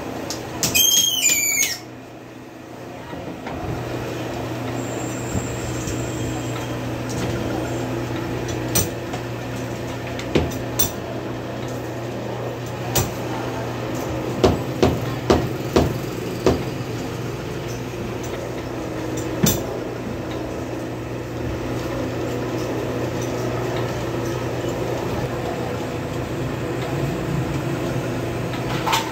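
Metal knocks and clanks as a hydraulic cylinder is worked on and handled, with a cluster of several sharp knocks near the middle. Under them runs a steady low machine hum, and a brief high, wavering squeal comes about half a second in.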